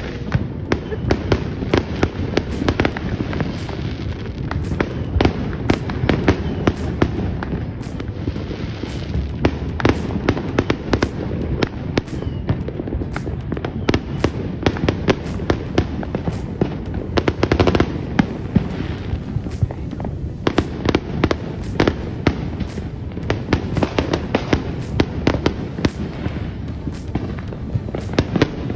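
Fireworks going off continuously: rapid cracks and pops, several a second, over a constant low rumble of booms.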